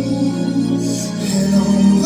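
Live concert music: sustained instrumental chords with no singing, the chord changing about two-thirds of the way through.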